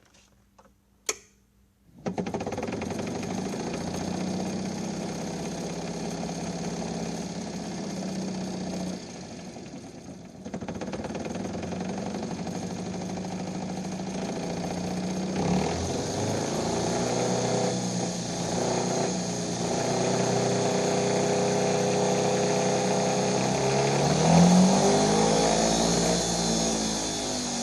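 1998 Club Car golf cart's drive motor and rear drivetrain running with a steady mechanical noise, starting after a single click about a second in. The level drops for a moment and returns, and near the end the pitch rises and falls as the speed changes. The noise comes from a worn-out bearing at the front of the motor that supports the shaft.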